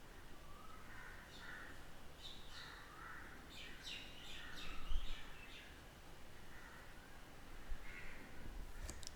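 Faint bird calls, short chirps and calls repeating every second or so, with one low thump about five seconds in.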